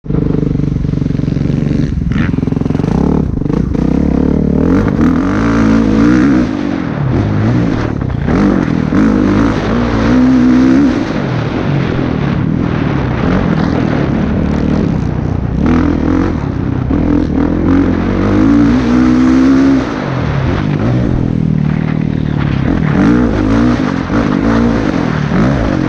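Kawasaki KX450F dirt bike's single-cylinder four-stroke engine revving up and dropping back again and again as the rider accelerates, shifts and rolls off, heard from a camera on the rider's helmet.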